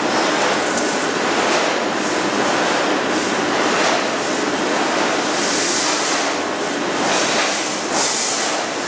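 Steel rolling mill machinery running: a loud, steady din of rollers and steel bars on the roller table and cooling bed, with a couple of brief hissier swells about halfway through and near the end.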